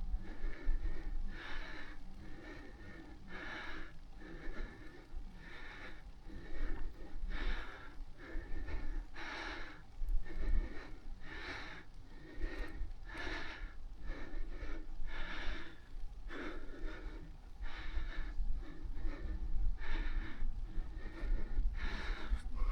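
A cyclist breathing hard and rhythmically, about one breath a second, over a steady low rumble.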